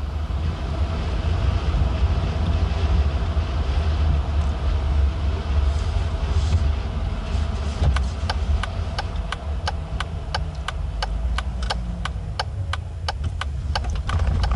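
Steady low engine and road rumble inside a Jeep's cabin while driving. From about eight seconds in, the turn-signal flasher clicks evenly, about three clicks a second, as the Jeep comes up to a turn.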